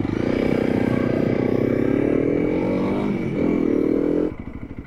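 Motorcycle engine pulling away under acceleration, its pitch climbing, dipping briefly about three seconds in and climbing again. It cuts off abruptly near the end, leaving a lower, evenly pulsing engine beat.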